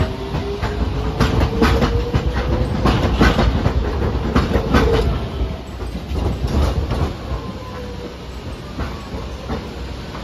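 Hiroshima Electric Railway 3800-series articulated streetcar pulling out and passing close by, its wheels clacking over track joints and points under a slowly rising whine. The clatter dies down after about seven seconds, leaving a low rumble.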